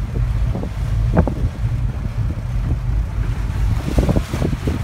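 Wind buffeting the microphone aboard a motor yacht under way, over a low steady rumble from the boat's Winton diesel, with gusty bumps throughout.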